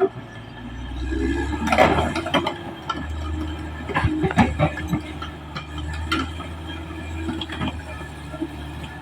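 Caterpillar D6R XL bulldozer's diesel engine running under work with a low, rising and easing rumble, broken by several sharp metallic clanks and knocks from the steel tracks and blade.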